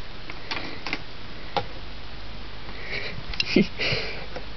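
Soft handling noises close to the microphone: a few light clicks in the first couple of seconds, then short breathy rustles with one brief low sound between three and four seconds in.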